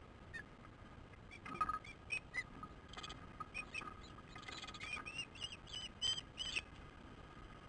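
Ospreys calling: a run of short, high whistled chirps, some sliding up and down in pitch, packed through the middle few seconds.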